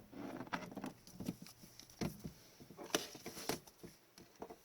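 Hockey trading cards being handled and flipped through: several sharp slaps and flicks of card stock with light rustling between them.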